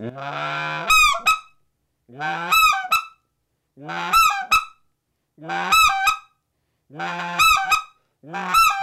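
Speck call (specklebelly goose call) blown by mouth, playing scratch yodels slowly: about six calls, each a low scratch, a short falling bent note and a high squeal blurred together in one breath. The calls come about a second and a half apart.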